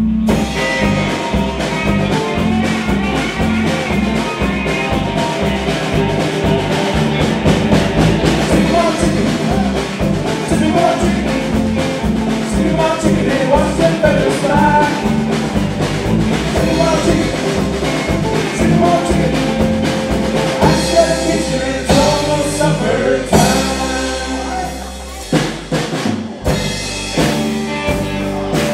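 Live country band playing: electric guitars, bass and drum kit together, with a steady beat. The band drops back briefly near the end, then comes in again.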